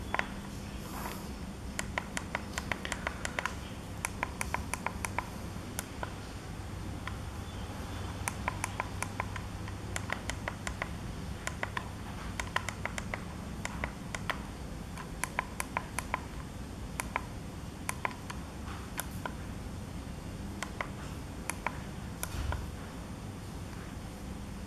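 Push buttons on an e-bike LCD display clicking, pressed in quick runs of several clicks a second to step through setting values, over a steady low hum.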